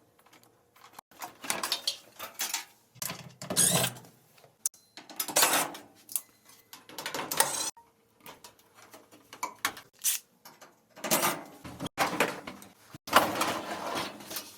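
Irregular scraping, sliding and knocking of metal panels and parts as the LG dryer is taken apart to get at its squeaking drum rollers, with a few sharp clicks.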